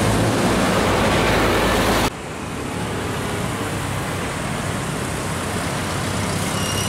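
Road traffic: a loaded concrete mixer truck passing close, its engine and tyre noise loud until it cuts off abruptly about two seconds in. Then quieter street traffic with small trucks' engines running, slowly getting louder.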